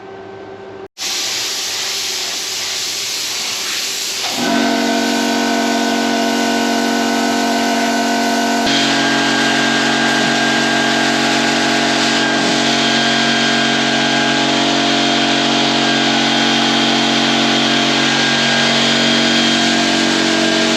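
Air spray gun hissing steadily as primer is sprayed, with a machine's steady hum joining about four seconds in.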